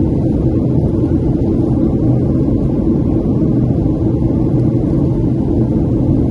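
Steady cabin noise inside a Boeing 737-700 on approach: a low rumble of airflow and the CFM56-7B engines, with a steady hum through it.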